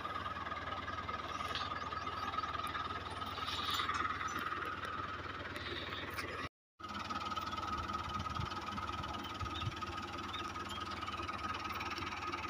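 Tractor engine running steadily at low revs, a constant low hum with a steady high-pitched tone over it. The sound drops out completely for a moment about six and a half seconds in.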